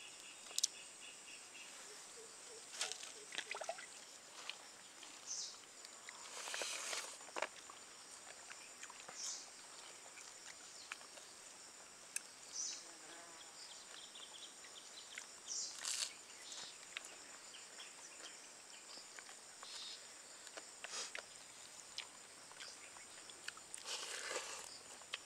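Faint outdoor ambience of insects trilling steadily at a high pitch, with scattered light clicks and brief rustles.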